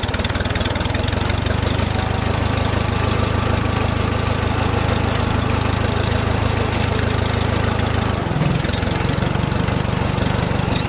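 Case 430 farm tractor engine running steadily at low speed, its note shifting slightly about eight seconds in.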